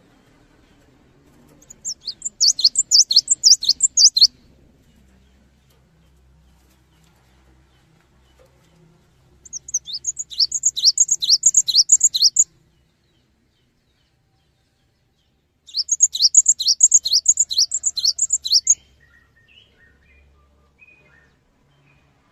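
Cinereous tit singing: three phrases, each a fast run of repeated high whistled notes lasting two to three seconds, spaced several seconds apart, followed near the end by a few soft, quieter call notes.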